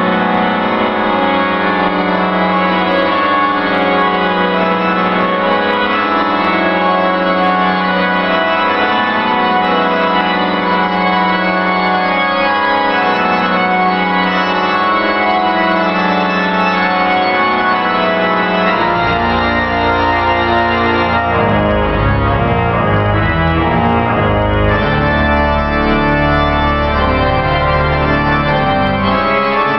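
Pipe organ playing loud, sustained full chords; about two-thirds of the way through, deep pedal bass notes come in and move beneath the chords.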